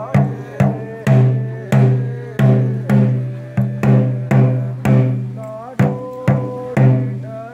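Ritual drums, typically the chenda of a Theyyam thottam, beaten in an even pulse of about two strokes a second. Each stroke rings on with a deep tone that fades before the next.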